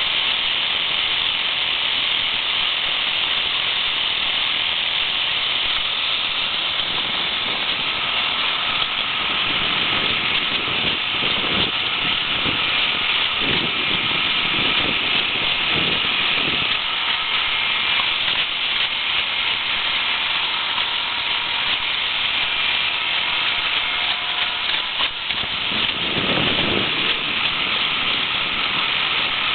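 Steady rushing hiss of a small motorboat under way, wind and water noise over the motor, with a few faint irregular lower sounds in the middle and near the end.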